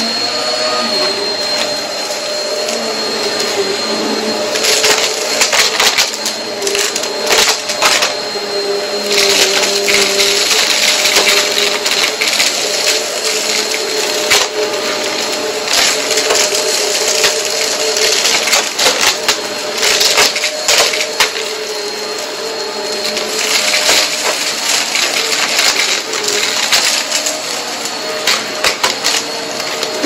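Vacuum cleaner running steadily over a rug, with irregular crunching clicks of dry dirt being sucked up into the nozzle.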